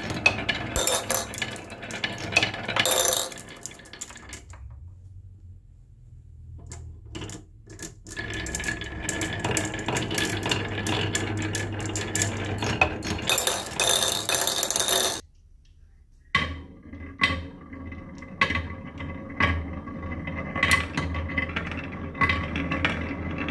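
Glass marbles rolling down HABA wooden slope tracks with wavy grooves, rumbling on the wood and clicking against the curves and each other. The clatter thins out for a few seconds, then builds again. It cuts out for about a second past the middle and comes back busier, with many marbles running at once.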